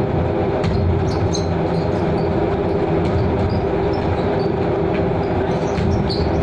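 Steady drone of a ship's engines and machinery, a constant low rumble with a steady hum. A few basketball bounces and short shoe squeaks on the deck court sound over it.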